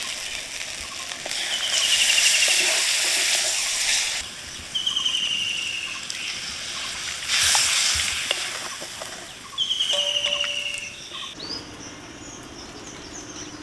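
Spiny gourd curry sizzling and bubbling in a hot iron wok as water is poured in and stirred, in two loud hissing spells. A bird repeats a short, falling trill several times.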